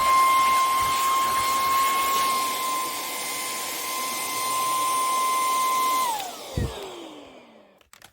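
Cordless stick vacuum cleaner running with a steady high whine over a rush of air. About six seconds in it is switched off: the whine falls in pitch as the motor spins down and fades, with a low knock partway through.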